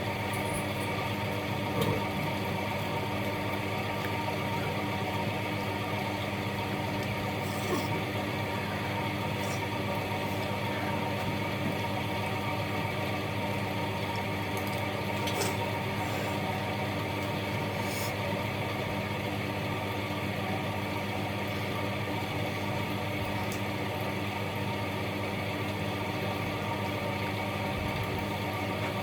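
Steady mechanical hum made of many even, constant tones, with a few brief faint clicks.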